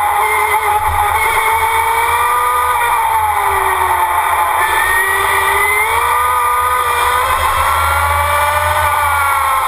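Onboard sound of the SGT FE11 electric Formula Student car: a whine from the electric motor and drivetrain, with a low rumble underneath. The whine's pitch follows the car's speed, sagging about four seconds in and rising again before falling near the end.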